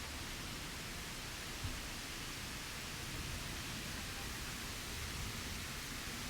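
Steady rushing hiss with a fluctuating low rumble underneath, and one brief tap about a second and a half in.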